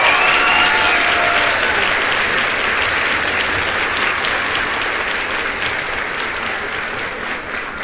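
A crowd applauding, with a few whistles in the first second. The clapping slowly dies away.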